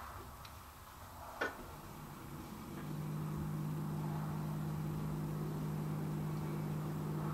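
A single sharp click about a second and a half in, then a steady low machine hum starts just under three seconds in and holds.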